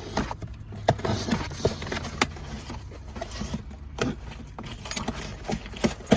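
Packaging being handled and opened: rustling and crinkling with scattered sharp clicks and taps, over a steady low hum.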